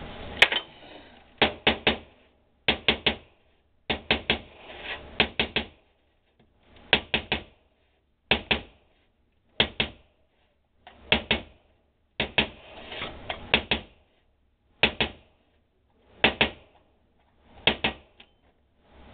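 Sharp clicks in quick runs of two to four, one run about every second and a half.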